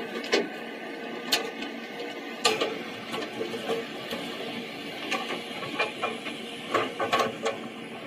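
Excavator at work: irregular metallic clicks and clanks over a steady mechanical whine.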